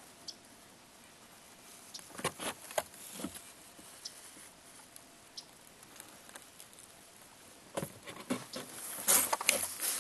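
Handling noise: scattered light clicks and short rustles in two clusters, about two seconds in and again near the end, the later cluster louder.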